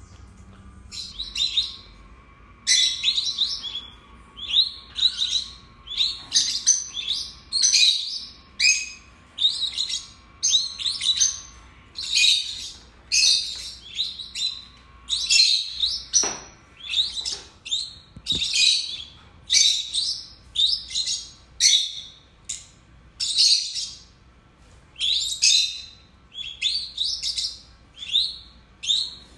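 Two peach-faced lovebirds calling in a rapid run of short, sharp, high chirps, about two a second, starting about a second in.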